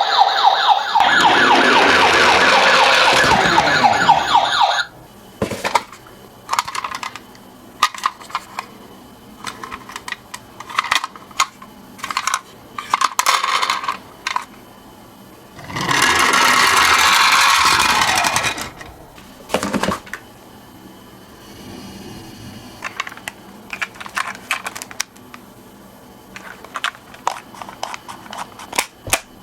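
Toy ambulance siren wailing loudly for about five seconds, then cutting off suddenly. After it come scattered clicks and knocks of toy minicars rolling down a slope, with a second loud rushing stretch of a couple of seconds about halfway through.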